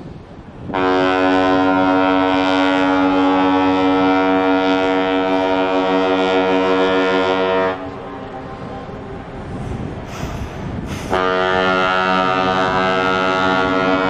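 Ship's horn of the ocean liner Blue Lady (ex-SS France) giving two long blasts: the first lasts about seven seconds, and the second starts about three seconds after it ends and is still sounding at the end. Each blast is one steady, unwavering tone.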